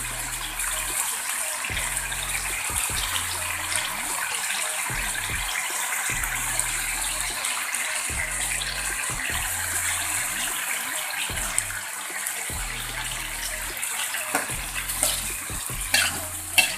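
Snail meat sizzling as it is stir-fried in a hot pan, a steady sizzle, with a low hum that comes and goes every couple of seconds underneath. A few sharp clicks near the end, typical of a spatula against the pan.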